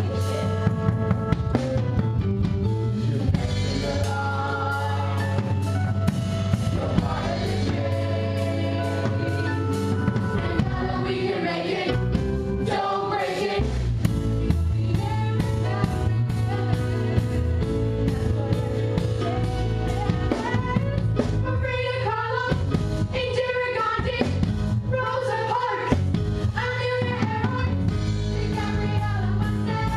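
A live stage-musical song: singers over a pit band of drum kit, bass and keyboard, playing a steady beat.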